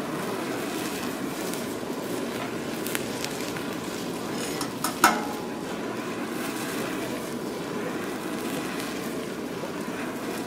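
Food sizzling steadily on a hot cooking surface, with a sharp knock about halfway through and a few faint clicks before it.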